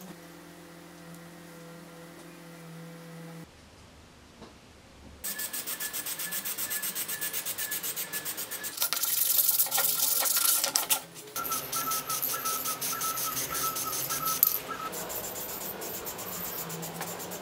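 Aerosol spray paint can spraying in bursts, starting about five seconds in, with a hiss that is loudest for a couple of seconds near the middle.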